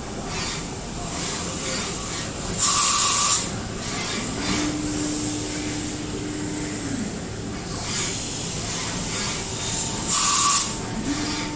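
Mazak vertical machining center running, over a steady machine hum. Two short, loud hisses of compressed air come about three seconds in and again near the end. Between them the spindle whines up to a steady pitch, holds it for about two and a half seconds, winds down, and starts spinning up again at the very end.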